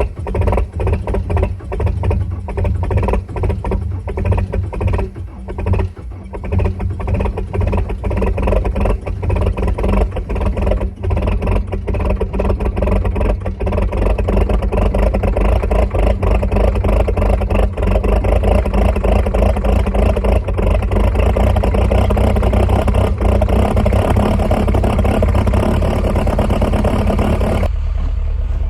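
John Deere skid steer's turbodiesel engine running just after a cold start. It is uneven at first, then steadier and louder from about halfway. Near the end its sound drops off abruptly.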